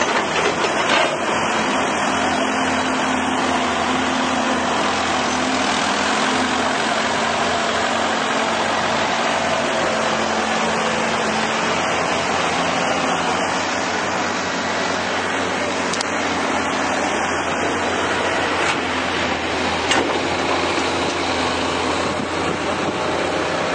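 Hydraulic excavator's diesel engine running steadily, with a few sharp knocks from time to time.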